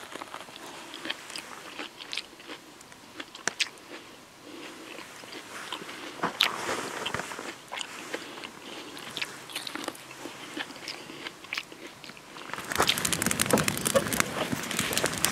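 Close-up bites and chewing on an ear of husk-roasted corn on the cob, with scattered crunchy clicks. About twelve seconds in, this gives way to a louder wood fire crackling in a fire pit.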